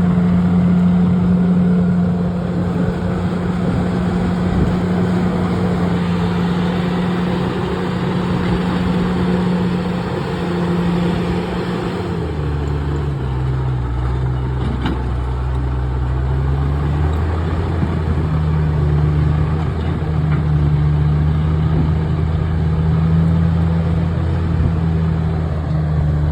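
Bulldozer's diesel engine running steadily, its pitch dropping about twelve seconds in and rising back a few seconds later.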